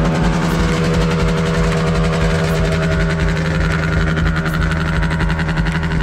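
Vintage Ski-Doo racing snowmobile's two-stroke engine idling steadily.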